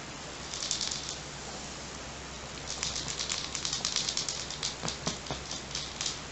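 A kitten batting and pouncing on a feathered wand toy: crinkly rustling and quick clicks, a short burst about half a second in, then a long, busy run from about three seconds on.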